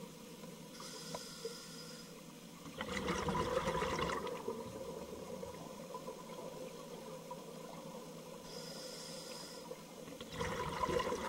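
Scuba diver breathing through a regulator underwater, heard through the camera housing. A faint hiss of an inhale comes about a second in, then a gurgling burst of exhaled bubbles near the third second. The cycle repeats with another inhale hiss around the ninth second and a bubble burst near the end.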